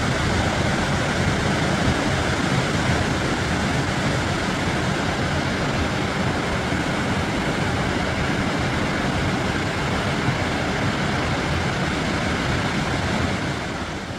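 Steady rush of a waterfall, loud and even, dropping somewhat in level near the end.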